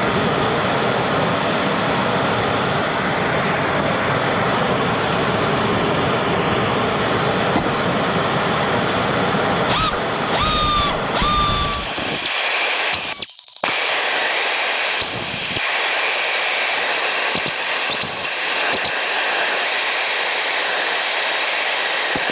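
Small pneumatic angle grinder's air motor running flat out, being run continuously to heat it up: a loud, steady rush of air with motor whine. About ten seconds in there are a few short squealing whistles; a little past the middle the sound drops out for a moment and then carries on thinner, with less low end.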